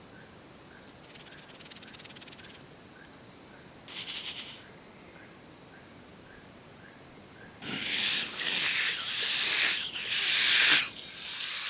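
Snake hissing: a run of loud breathy hisses in the second half, with a weaker hiss near the end. Earlier come two short, high, rapidly pulsed buzzes, over a faint steady high chirring of insects.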